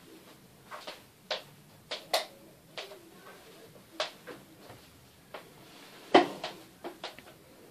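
Scattered short clicks and knocks of things being handled, about eight in all, the loudest about six seconds in.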